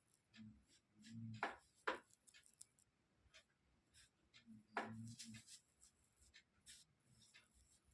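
Faint scattered clicks and taps, the sharpest about a second and a half in, just before two seconds, and near the middle, with a short low hum twice.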